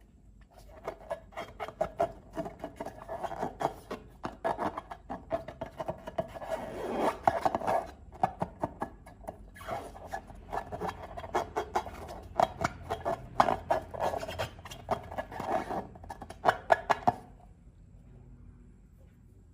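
Slime being mixed and squished by hand, a dense run of small sticky clicks and scrapes that stops about two seconds before the end.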